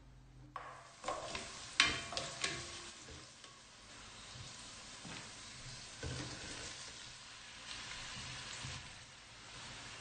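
Sliced onions frying in a stainless steel pot with a steady sizzle that starts about half a second in. There are a few sharp knocks in the first few seconds, and a heavier thump about six seconds in as boiled pork pieces are spooned into the pot.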